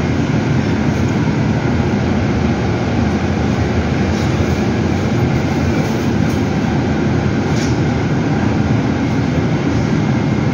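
Cabin noise inside a moving CAIO E-Millennium battery-electric city bus: a steady low rolling rumble from the road and tyres, with the air-conditioning on and no engine sound, and a few faint clicks of rattling in the middle.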